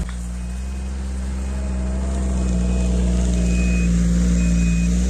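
BRP Ski-Doo Grand Touring 1200 snowmobile's three-cylinder four-stroke engine running close by, growing louder as it backs up. Over it, a short high beep sounds about once a second in the second half: the reverse-gear warning beeper.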